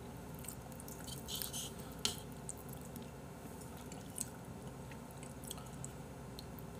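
Close-miked chewing of black-bean-sauce instant noodles (Jjapaghetti): faint wet mouth smacks and clicks, a few sharper ones about one and a half, two and four seconds in.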